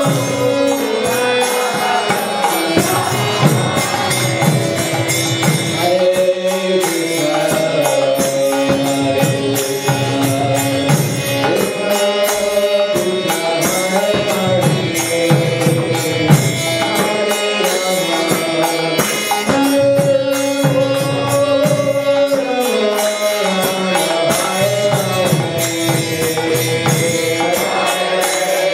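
Harmonium playing sustained reed chords while a man sings a devotional chant over it, the melody rising and falling in long held phrases.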